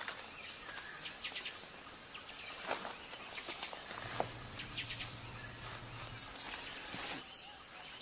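Amazon rainforest ambience: a steady chorus of insects with a constant high trill, broken by scattered short high chirps, several in quick succession a little after six seconds in.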